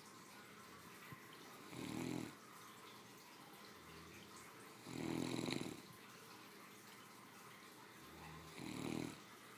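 Great Dane sound asleep and snoring: three snores about three and a half seconds apart, the middle one the loudest.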